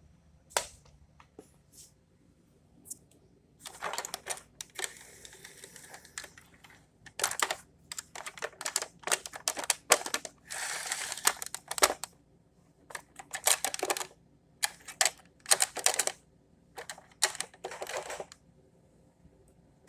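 Irregular bursts of rapid, sharp clicking and clattering, broken by short pauses, with a brief hiss about ten seconds in.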